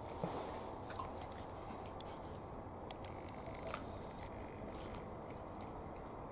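Dog eating porridge from a plastic tray: faint chewing with a few small clicks.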